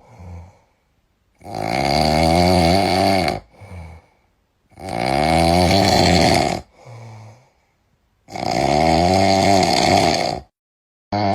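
A person snoring loudly: three long snores about three and a half seconds apart, each followed by a short, quieter breath out, with a fourth snore starting right at the end.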